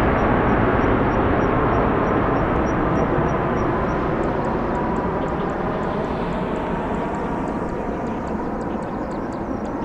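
Twin-engine Airbus A330 airliner passing overhead and climbing away: a steady jet engine rumble with a faint whine, slowly fading as it recedes. Faint regular high chirping sits in the background.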